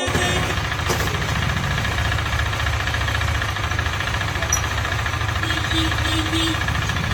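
Freshly rebuilt KTM Duke 390 BS6 single-cylinder engine idling steadily, with a fast, even pulse.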